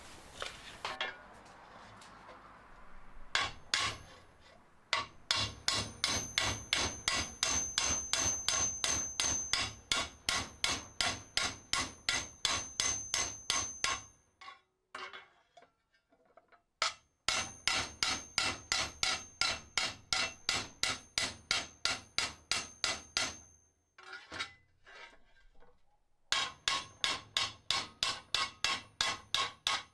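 A hand tool working the edge of the lock hole in a sheet-metal cupboard door in quick, even strokes, about three a second, with a high metallic ring. It comes in three long runs with short pauses, as the hole is shaped by trial and error to fit a cam lock.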